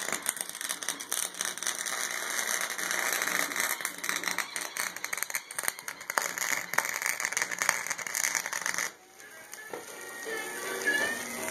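Harbor Freight wire-feed welder arc crackling steadily as a bead is run on steel plate, cutting off suddenly about nine seconds in when the trigger is released.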